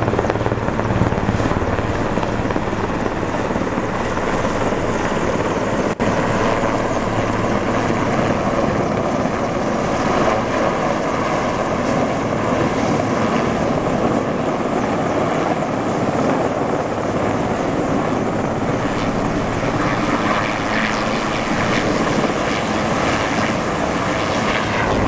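Medium firefighting helicopter hovering low overhead while its Bambi bucket dips into the river to fill, its rotor and turbine noise loud and steady.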